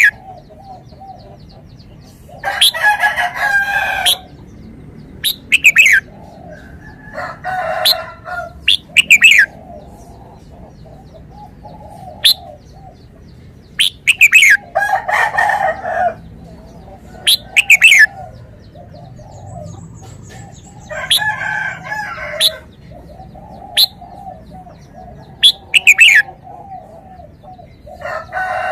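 Caged red-whiskered bulbul calling with short, sharp whistled notes every few seconds. A rooster crows in the background about five times, at intervals of six or seven seconds; these longer calls are the loudest sound.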